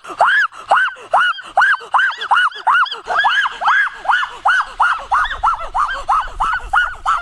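A rapid, unbroken run of short high yelping cries, about three a second, each rising and falling in pitch, from a child's voice. A low rumble joins faintly in the second half.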